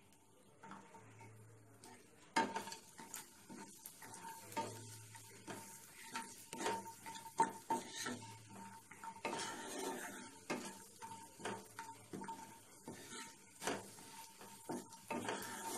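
Wooden spatula stirring and scraping cashews and raisins around a nonstick kadai in hot oil and ghee. Irregular clicks and scrapes start about two seconds in, over a light sizzle of frying.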